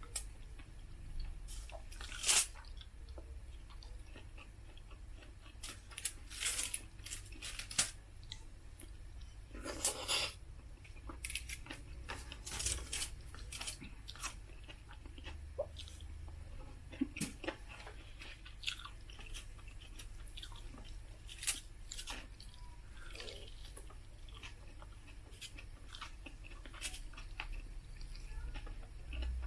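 Close-up chewing and crunching of food, with scattered short crunches and mouth clicks over a low steady hum.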